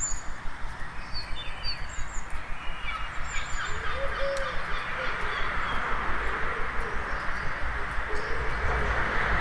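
Dawn chorus in a town: several small birds chirping and trilling in short high phrases over a steady hum of town noise and low rumble.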